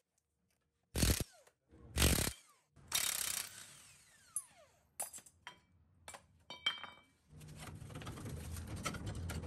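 Impact wrench in three short bursts about a second apart, spinning 19 mm nuts off leaf-spring U-bolts, the last burst trailing off with a falling whine as the tool winds down. Then scattered light clicks and a few ringing metallic taps from loose steel parts, and a low rumble that builds near the end.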